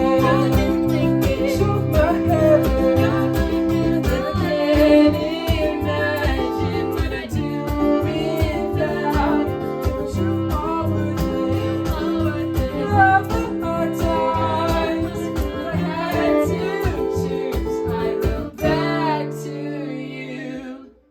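Instrumental break of an acoustic folk song: acoustic guitars strumming chords in a steady rhythm, with a violin playing a wavering melody over them. Near the end the band holds one chord, and the music cuts off for a moment.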